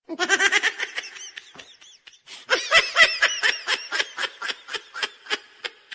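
Laughter in two bouts: a short one at the start and a longer one from about two and a half seconds in, in quick pulses of about five a second.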